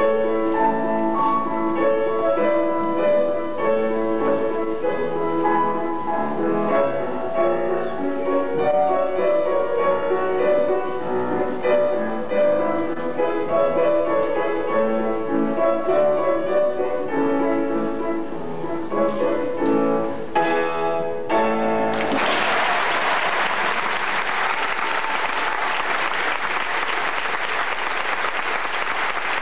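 Instrumental dance music that stops about two-thirds of the way through. Audience applause takes over and runs on steadily.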